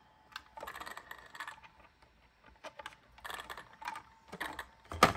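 Hands handling and fitting a plastic part onto a toy RC truck's plastic body: scattered small clicks and rustling, with a sharper click near the end.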